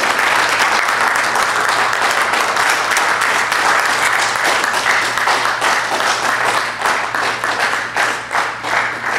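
A crowd applauding, a dense wash of clapping that thins into more separate claps and fades toward the end.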